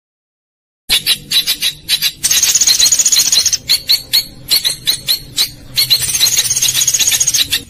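Recorded songbird song: fast, high trills and sharp chattering notes in quick repeated phrases, beginning about a second in after a short silent gap. It is a 'masteran' track, played to teach captive white-rumped shamas new song.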